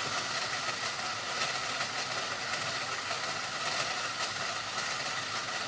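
Bandsaw running and cutting through a steel knife blank, a steady even noise, trimming away the bulk of the excess steel.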